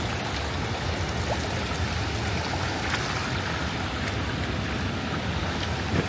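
Steady rushing of a flowing mountain stream.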